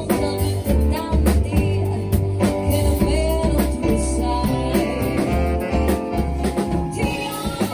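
Live band playing, with a drum kit keeping a steady beat over a heavy bass line and a singing voice or lead instrument above.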